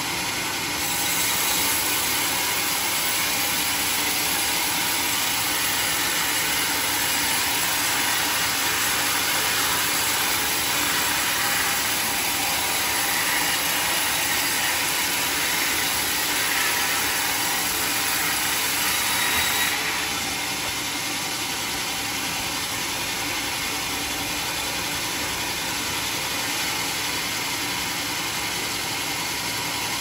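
Homemade circular-saw sawmill running steadily. From about a second in until about two-thirds through it grows louder and hissier, then settles back to a slightly quieter steady run.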